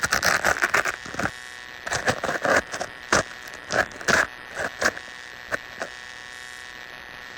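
Irregular bursts of rustling and crackling handling noise close to the microphone as a handheld camera is set down, thinning out after about six seconds, over a steady thin high-pitched whine.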